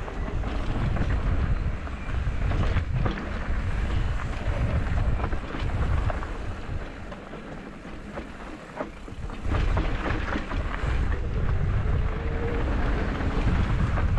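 Wind buffeting the microphone on a mountain bike descending a rocky trail, mixed with rattles and knocks of the bike over the rough ground. The rush drops away for a few seconds in the middle, then comes back.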